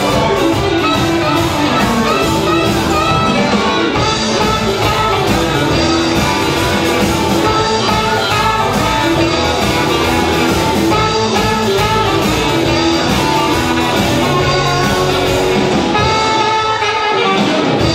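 A live band playing, with saxophone and electric guitars, loud and continuous.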